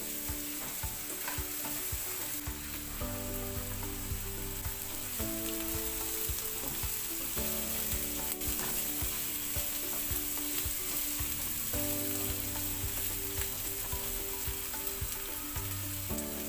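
Chopped onions and garlic sizzling steadily in hot oil in a nonstick wok as they are sautéed toward browning, with the spatula scraping and clicking against the pan as they are stirred.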